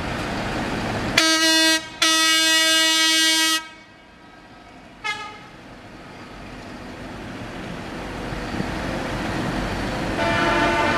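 Vehicle horns sounding in steady single-pitched blasts: a short blast about a second in, a longer one of about a second and a half right after, a brief toot around five seconds, and another long blast starting near the end. Between them, road traffic noise swells through the second half.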